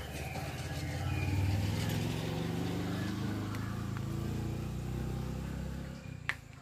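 A motor vehicle's engine running, a low hum that grows louder about a second in and fades out near the end, followed by a single sharp click.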